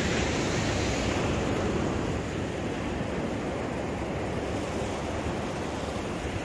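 Ocean surf washing onto the beach, mixed with wind rumbling on the microphone, a steady unbroken noise.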